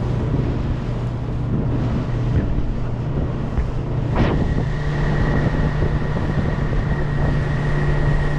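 Boat motor running steadily with wind buffeting the microphone. About four seconds in there is a brief thud, after which a faint high whine holds steady.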